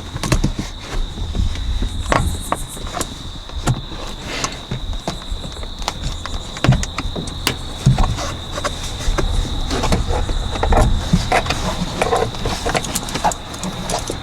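Clicks, knocks and scrapes of a car's plastic sun visor mount being pried and worked loose with a flathead screwdriver and hands, over a steady high-pitched tone.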